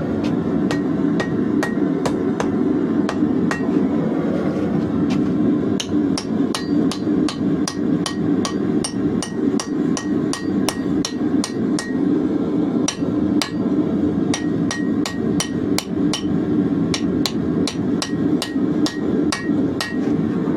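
Blacksmith's hammer striking hot leaf-spring steel on an anvil, a few ringing blows a second, while the knife is being forged. A steady low rushing noise runs underneath.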